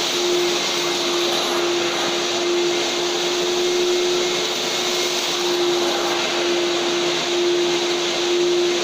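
FVC-80-3M wet and dry vacuum cleaner running steadily: an even rush of air with a constant hum at one pitch.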